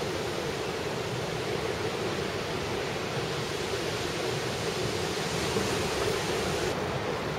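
Sea surf breaking on a sandy beach: a steady rush of waves.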